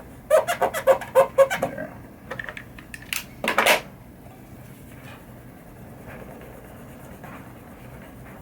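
A quick run of squeaks from a fingertip rubbing a clear Mylar leveling sticker down onto a smooth plastic pinball playfield insert, followed about three seconds in by two short scuffs.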